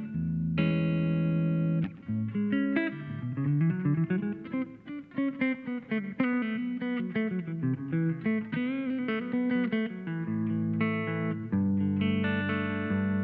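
Electric guitar played through a compressor effect: a held chord, then a single-note line with string bends through the middle, then chords again near the end.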